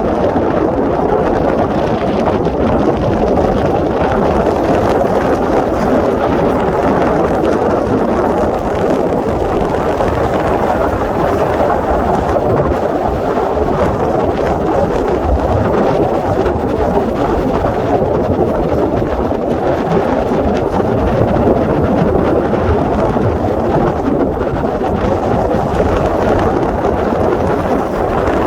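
Steady, loud rushing noise of a boat under way on a river: wind over the microphone mixed with the hum of its motor, unchanging throughout.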